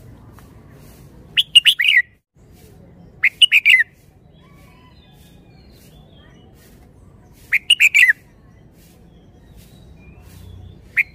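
Red-whiskered bulbul singing: short phrases of a few quick, clear notes, given three times a few seconds apart, with a fourth phrase starting at the very end.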